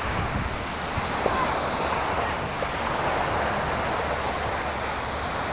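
Ocean surf: small waves breaking and washing up a sandy beach in a steady hiss of water, with some wind on the microphone.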